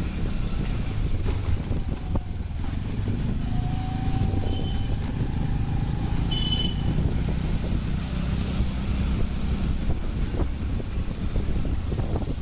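Two-wheeler riding along a road: a steady engine and road rumble with wind noise on the microphone. Two brief high beeps come near the middle.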